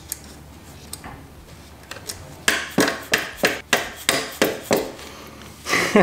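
Metal knocks on a Honda CRF300L's footpeg mount as an aftermarket peg and its pivot pin are worked into the frame bracket. Faint handling comes first, then about two and a half seconds in a run of sharp knocks, roughly three a second.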